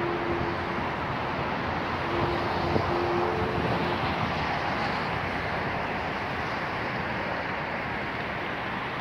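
Steady outdoor rush of wind and distant city traffic, with a faint engine hum during the first four seconds.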